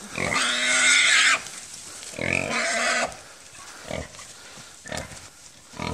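Hog squealing: two long, loud squeals, the first about a second long and the second shorter, followed by quieter shuffling and a couple of short knocks.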